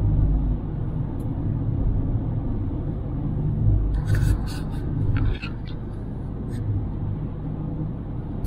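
Steady road and engine rumble heard inside a car's cabin at highway speed, with a few short, brighter noises about halfway through.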